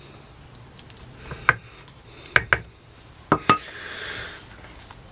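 Cooking utensils clicking and tapping against a Trangia cook pot and a glass mixing bowl: about five sharp clicks, two of them in quick pairs. Near the end comes a soft scraping as a spoon scoops mashed potato.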